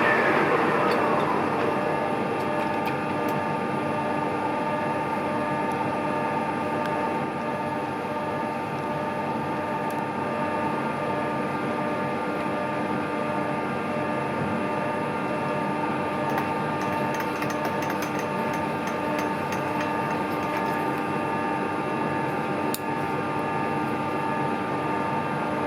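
Metal-working lathe running steadily with a whine of many fixed tones. A higher tone falls in pitch over the first second or so, and faint ticks come and go in the middle.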